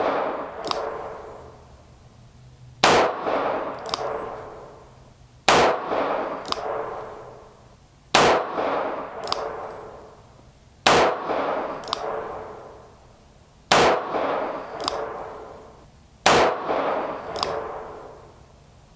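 Six shots from a Taurus 942M 2-inch-barrel .22 Magnum revolver firing CCI Maxi-Mag 40 gr hollow points, spaced evenly about every two and a half to three seconds. Each shot rings on in the small room for about two seconds, and a short, sharp click follows about half a second after each one.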